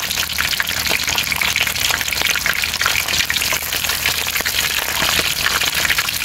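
Small gourami (cá sặc) deep-frying in hot oil in an aluminium wok: a steady, dense crackling sizzle as the fish crisp.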